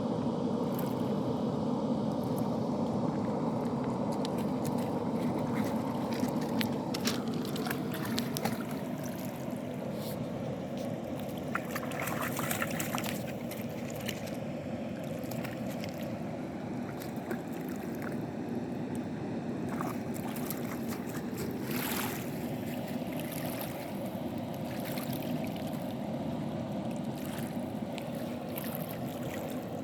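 Water released through a low river dam running steadily, a continuous rushing and splashing with a few sharper splashes now and then.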